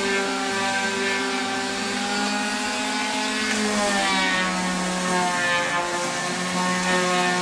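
Electric orbital sander running against weathered wooden furniture, sanding off the flaking old wood glaze. The motor's hum is steady, and its pitch shifts a little about halfway through.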